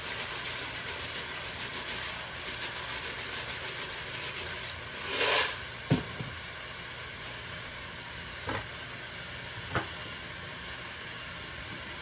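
Food cooking on the stove with a steady sizzling hiss, a short louder rush about five seconds in, and a couple of sharp clicks of utensils or cookware.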